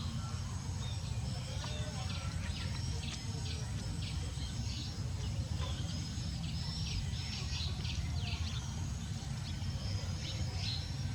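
Small birds chirping again and again in short high calls, over a steady low rumble.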